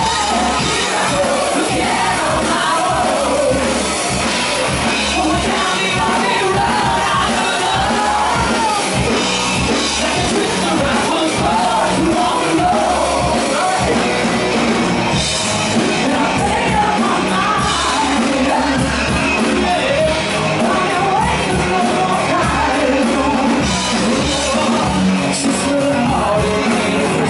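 Live rock band playing loud, with a man and a woman singing into microphones over electric guitar.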